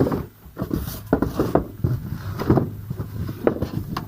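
Styrofoam packing being handled and set aside: irregular rustles and light knocks.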